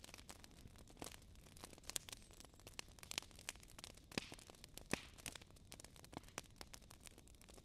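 Fire crackling: irregular sharp pops and snaps, a few noticeably louder than the rest, over a faint low hiss.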